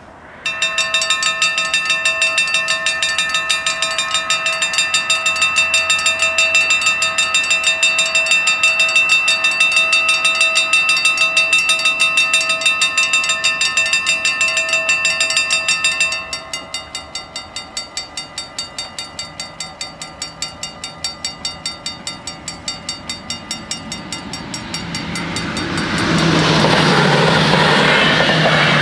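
Dutch level-crossing warning bells start ringing with rapid, evenly repeated metallic strokes. About sixteen seconds in they drop to a quieter ringing, as these crossings do once the half-barriers are down. Near the end an NS SGMm Sprinter electric multiple unit approaches and passes, its rising rumble of wheels and train noise becoming the loudest sound.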